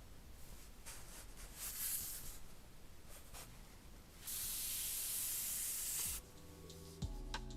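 Packaging being handled: scattered rustling and rubbing, then a steady hiss lasting about two seconds. Music with a deep bass comes in near the end.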